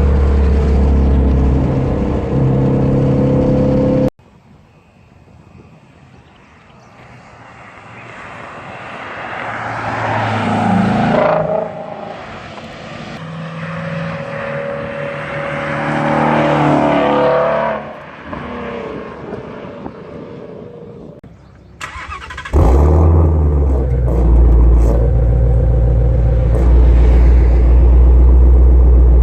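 2017 Ford Shelby GT350's 5.2-litre Voodoo flat-plane-crank V8 with its active exhaust open. It runs loud and steady for about four seconds, cuts off abruptly, then grows louder as it approaches twice with a fall-off in between. After a second abrupt cut it returns as a loud, steady, deep exhaust rumble.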